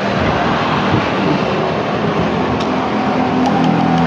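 A motor vehicle engine running, heard as a steady dense noise, with a steady engine hum setting in about two seconds in.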